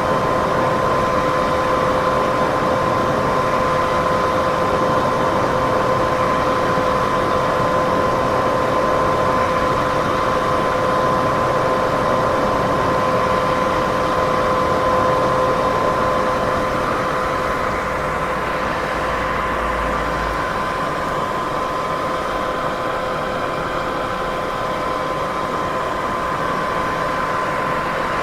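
Steady white-noise hiss, strongest in the middle range, with a constant hum in two pitches an octave apart running through it. It grows slightly softer about two-thirds of the way through.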